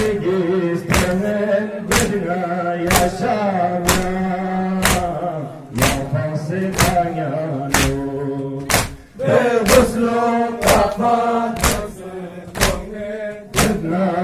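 Male voices chanting a Balti noha, a Muharram lament. Sharp slaps about once a second keep the beat, from the mourners' chest-beating (matam).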